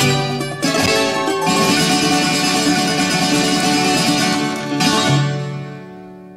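Greek instrumental music led by a plucked bouzouki. It closes on a final held chord about five seconds in, which rings on and dies away.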